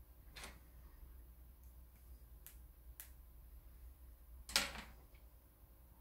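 Light clicks and taps of plastic bird-repeller pinwheel parts (holographic blade sheets and a plastic rod) being handled on a tabletop, with one louder knock about four and a half seconds in.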